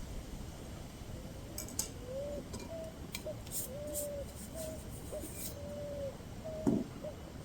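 A bird calling over and over in short, steady hooting notes, with a few sharp clicks and ticks in the middle and a dull thump near the end.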